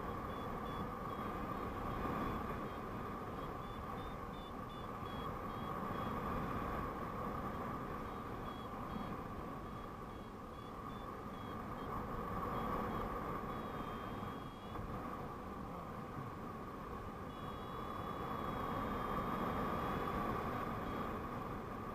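Airflow rushing over the camera microphone during paraglider flight, rising and falling gently. Over it a paragliding variometer gives faint, high, short beeps in groups, then longer held tones about two-thirds of the way through and again near the end.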